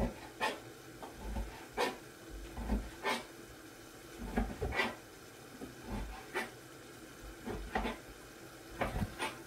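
Light kitchen handling: a scattered series of short knocks and clicks, roughly one a second, with some rubbing.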